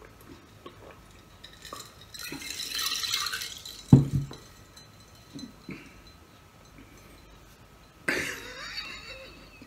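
A heavy glass beer stein set down on the table with a sharp thud and clink about four seconds in, the loudest sound, just after a breathy hiss as the drinking ends. A paper rustle follows near the end as food is picked up from the paper-covered table.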